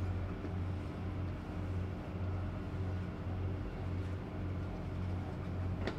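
Steady low hum of the E26-series Cassiopeia sleeper train's cars as they move slowly past, gently pulsing in level, with one sharp click near the end.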